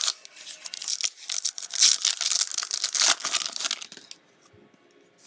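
Plastic wrapper of a trading-card pack being torn open and crinkled: a dense crackling that lasts about four seconds, then dies away.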